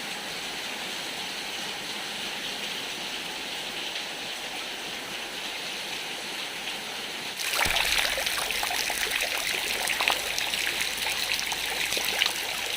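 Heavy rain falling steadily. About halfway through it becomes louder, with many separate drops tapping through it.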